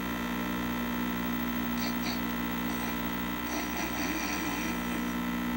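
Steady electrical mains hum, a buzz made of several evenly spaced tones. Faint, brief voice-like or breathy sounds sit under it about two seconds in and again around four seconds in.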